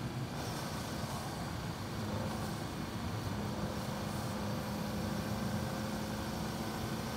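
Car engine running at a steady cruise, a constant low hum over road and wind noise.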